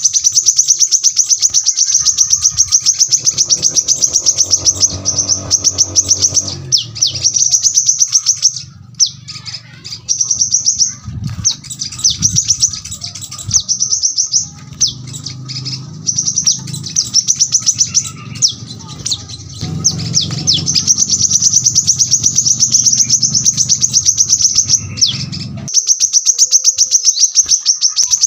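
Brown-throated sunbird (kolibri kelapa) singing long, dense runs of very rapid, sharp high chirps, its rapid-fire 'tembakan' song, broken by short pauses.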